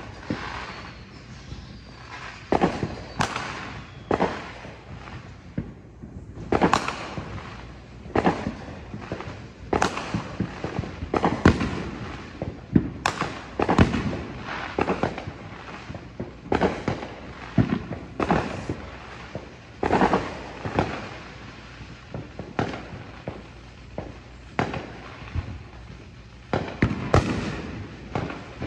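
Fireworks exploding in the air in a steady run of bangs, about one to two a second, each trailing off in an echo.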